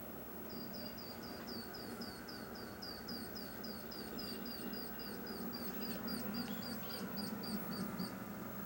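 A rapid, even run of short, high chirping calls, nearly four a second, stopping near the end: animal calls on a nature documentary's soundtrack, heard through a TV speaker over a low steady hum.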